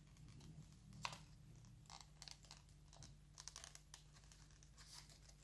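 Faint rustling and crinkling of folded paper being handled and shaped, in a few scattered soft crackles.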